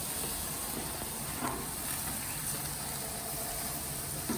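Steaks sizzling on a gas grill: a steady hiss with a low rumble underneath and a couple of faint clicks.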